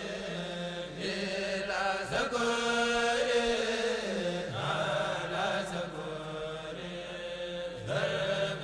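Chanted vocal music, voices holding long notes that shift in pitch every second or two.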